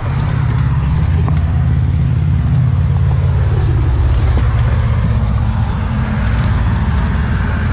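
A vehicle engine running steadily, a loud, even low rumble.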